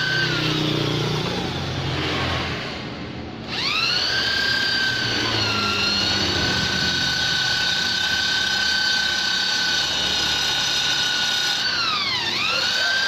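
High-speed rotary grinder with a carbide burr bit whining while shaping a two-stroke Vespa's ports. It winds down just after the start, spins back up after about three seconds and runs steadily. Near the end it briefly drops in pitch and recovers.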